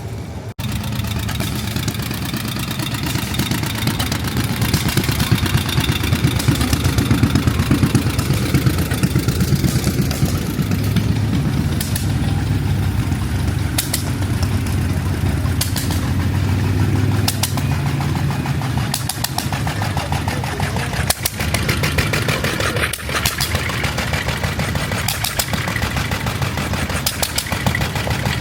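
Engine running steadily with a fast, even firing beat.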